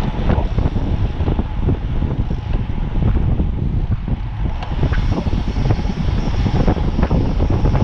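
Wind buffeting a cyclist's action-camera microphone at riding speed: loud, irregular and deep, covering any tyre or drivetrain sound.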